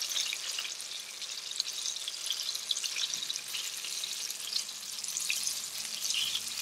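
Flour-coated jackfruit pieces shallow-frying in hot oil: a steady crackling sizzle.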